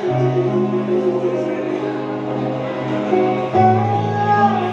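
A live band playing: a woman singing into a microphone over guitar, bass and keyboard. About three and a half seconds in she holds one long high note.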